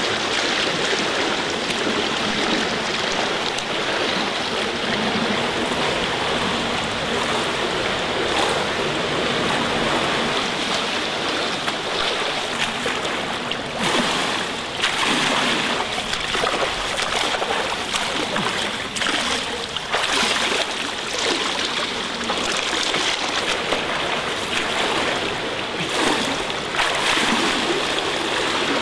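A swimmer's arm strokes and kicks splashing through pool water in a steady wash, with louder splashes about halfway through as the swimmer reaches the wall and turns, and again later on.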